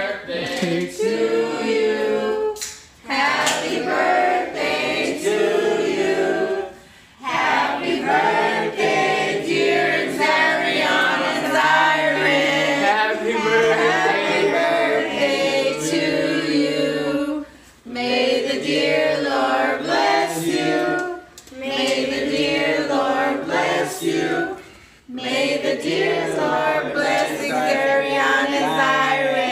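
A group of family voices singing a birthday song together to a child in front of a lit birthday cake. The singing comes in several phrases with short breaks between them.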